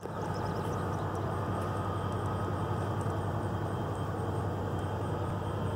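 Steady low machinery drone with a constant deep hum, unchanging throughout, with faint high chirps above it.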